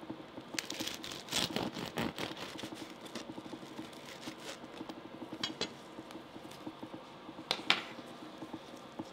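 Serrated bread knife sawing through the crisp crust of a salt bread roll, a dense run of crackling crunches from about half a second to two seconds in, then lighter scraping strokes. Near the end a sharp metal clack as the knife and tongs are set down on the cutting board.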